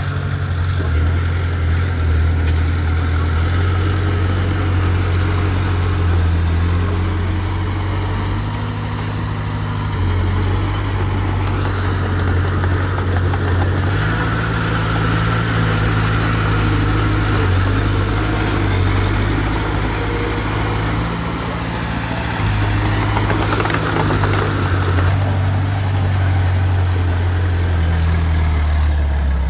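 Heavy diesel engine of earthmoving machinery running, its note shifting up and down as it works under changing load.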